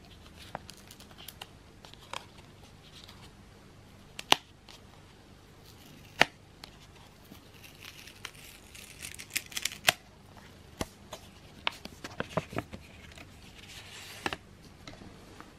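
Hands handling stiff paper and card: a red card-stock folder is opened and photo cards are slid out, with rustling and scattered sharp clicks of card edges. The loudest sounds are two sharp clicks about four and six seconds in. A flurry of rustling comes about eight to ten seconds in.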